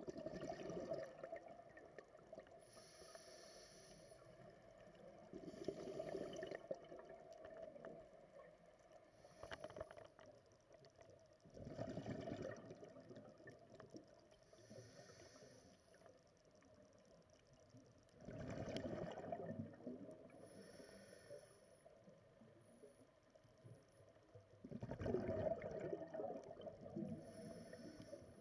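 Scuba diver breathing through a regulator underwater: exhaled bubbles rumble out in bursts of a second or two, about every six seconds, with a fainter high hiss from the regulator on each inhalation in between.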